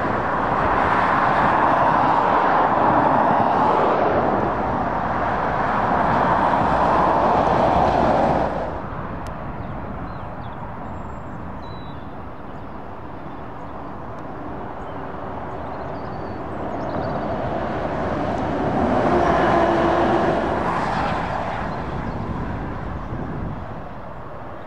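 Road traffic on a dual carriageway: lorries and cars passing at speed, a loud rush of tyre and engine noise. It drops off sharply about eight seconds in to a quieter hum, then swells again for a few seconds as another vehicle passes.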